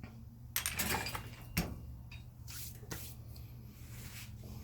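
Scattered clicks and clatter of metal tools being handled during an engine build, over a low steady hum.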